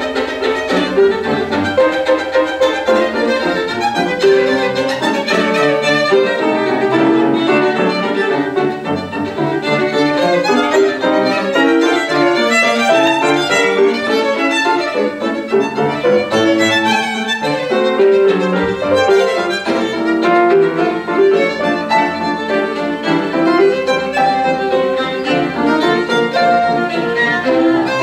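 Violin and grand piano playing a classical sonata together, the violin most prominent over the piano, in a continuous run of notes.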